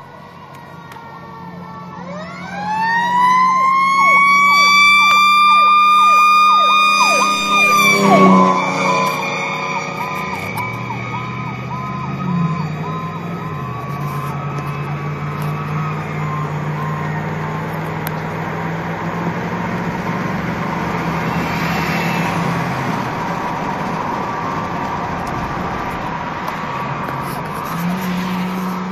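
Fire apparatus siren, heard from inside the cab of the responding vehicle: it winds up over about two seconds into a high wail and holds it, then about eight seconds in drops to a lower pulsing tone that fades under steady engine and road noise.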